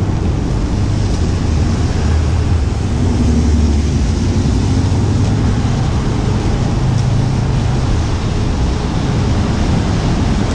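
Rain and traffic on a wet city avenue: a steady hiss of rain and tyres on wet pavement over a low rumble of car engines.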